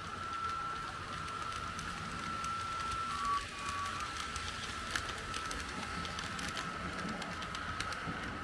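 Märklin H0 model train running on the layout: a steady high electric-motor whine with the wheels clicking over the track, the clicks coming thicker in the second half, and one sharper click about midway.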